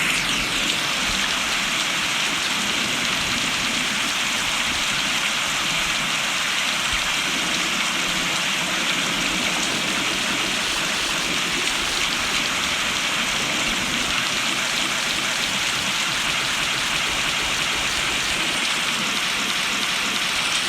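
Steady rain falling on surfaces, an even unbroken hiss of drops.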